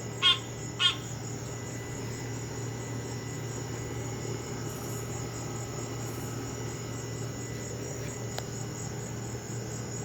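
Two short, clangy honking calls from an unseen animal in a bush, about half a second apart, both within the first second; after them the calling stops.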